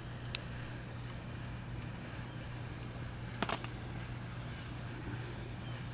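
Two sharp clicks of small metal parts or tools being handled, the first just after the start and the second about three and a half seconds in, over a steady low hum.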